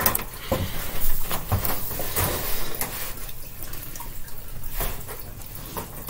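Scattered light clicks and rattles of a wire guinea pig cage's mesh panels being handled, busiest in the first couple of seconds and again near the end.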